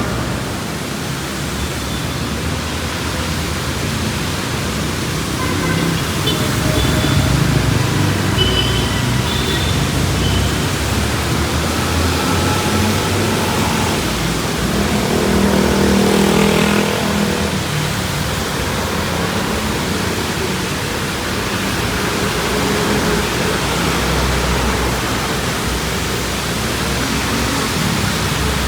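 Steady hiss of rain and tyres on a wet city road, with motor traffic passing. A louder vehicle engine goes by about halfway through.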